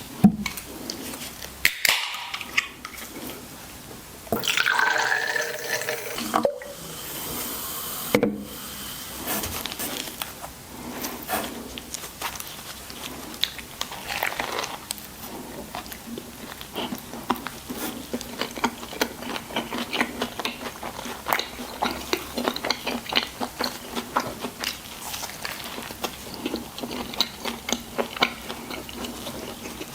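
Liquid poured into a container for a couple of seconds, about four seconds in, among a few knocks, followed by a long run of small clicks and crackles.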